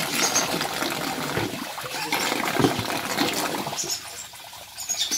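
Icy water being poured out of a plastic basin of frozen fish steaks, splashing steadily for about four seconds, then quieter near the end, with small splashes as the fish is handled.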